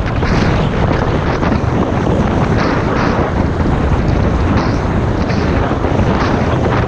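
Loud rushing wind buffeting a GoPro's microphone as the skier runs through deep powder, a heavy low rumble with the hiss of the skis through the snow.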